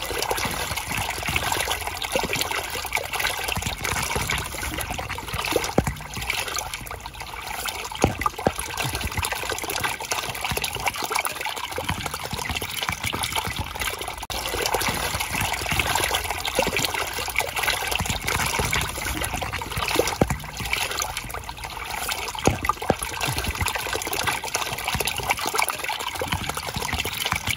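Water from a garden hose pouring steadily out of the open end of a cut PVC kitchen drain pipe and splashing onto the ground. The water is flowing back out around the hose because the line downstream is still clogged with hardened grease.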